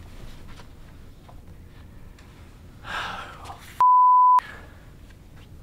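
A single steady high-pitched censor bleep, about half a second long, about four seconds in, replacing a spoken word; it is by far the loudest thing here.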